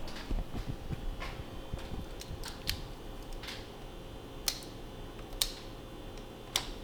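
Scattered light clicks and ticks, roughly one a second, from small hand tools and wires being handled while trimming wiring, over a faint steady hum.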